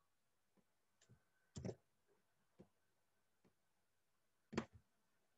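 Faint, scattered clicks of a computer mouse and keyboard as a block of spreadsheet cells is cut and pasted, about seven in all, the loudest a quick pair near the end.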